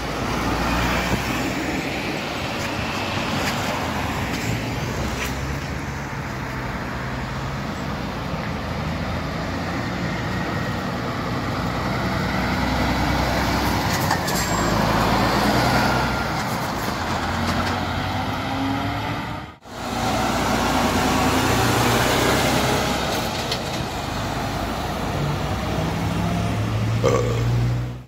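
Heavy trucks driving past at close range, their diesel engines running under load with tyre and road noise and a steady hum of traffic. The sound drops out suddenly for a moment about two-thirds of the way through.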